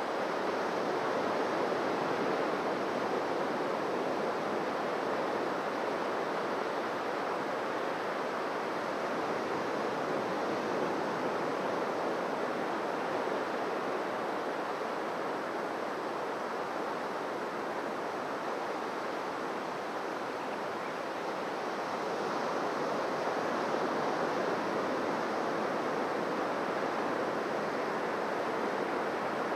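Waves breaking and washing onto a beach: a steady rush of surf that swells gently louder and softer, rising a little about three-quarters of the way through.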